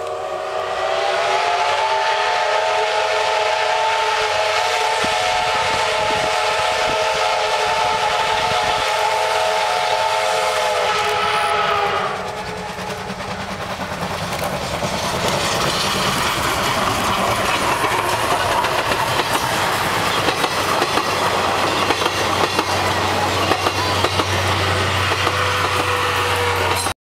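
Steam locomotive's whistle sounding one long, steady chord-like blast of about twelve seconds. It then passes close by working hard, with a dense rush of exhaust and the clatter of its train over the rails.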